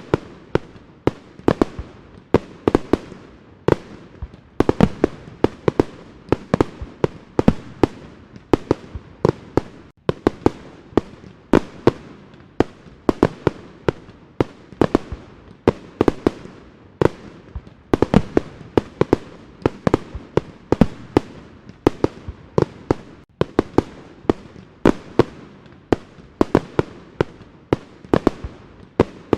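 Fireworks display: a rapid, unbroken string of sharp bangs and pops, several a second, each followed by a brief echo.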